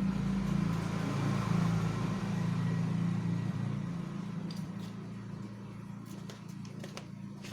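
An engine running steadily with a low hum that slowly fades away, with a few light clicks in the second half.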